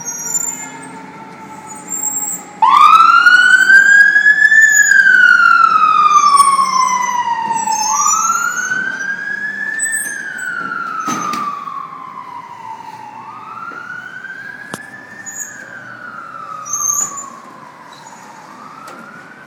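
A fire department siren switches on suddenly about three seconds in and wails up and down in slow cycles, a quick rise then a longer fall. It grows fainter over the following cycles as the apparatus pulls away.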